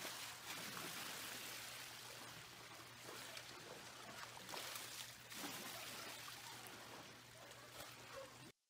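Swimming-pool water sloshing during an earthquake, waves slapping and spilling over the edge onto the deck in an irregular splashing wash. It stops abruptly near the end.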